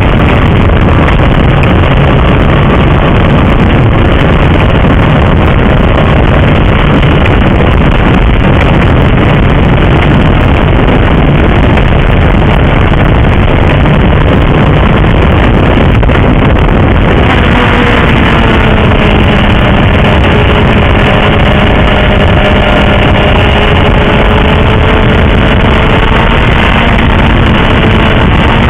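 Honda CBR1000RR's inline-four engine under way at road speed, mixed with heavy wind buffeting on the microphone. About two-thirds of the way through, the wind rumble eases and the engine's steady note comes through, slowly sinking in pitch.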